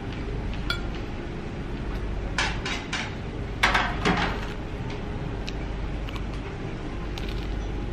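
A metal knife clinking against tableware: a few light clinks about two and a half seconds in, then a louder couple about a second later, over a steady low room hum.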